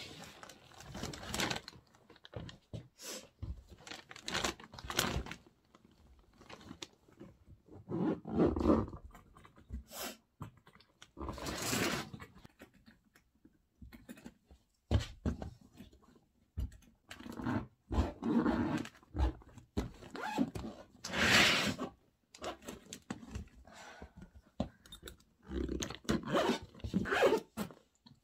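Packing sounds: rustling and crinkling of bags and clothes in irregular bursts, with occasional sharp knocks from a hard-shell suitcase being handled.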